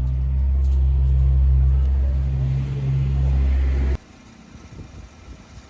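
Camper van's engine and road noise heard from inside the cab while driving: a loud, steady low drone that cuts off suddenly about four seconds in, leaving faint outdoor ambience.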